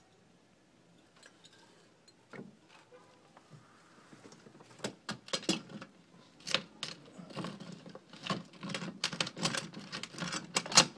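A hand tool scraping and knocking against a textured stucco wall and a filter's fitting in a cramped gap, with hands and clothing rubbing. Faint at first, then irregular clicks and scrapes from about five seconds in.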